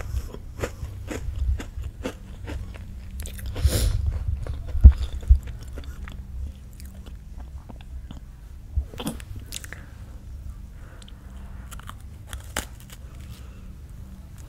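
Crunchy food being bitten and chewed close to a microphone, with many sharp crunches in the first half, the loudest about five seconds in, thinning to softer chewing later.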